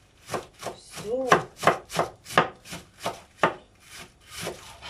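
Kitchen knife shredding a half head of white cabbage on a cutting board: quick, even cuts, about three a second, each one ending in a knock on the board.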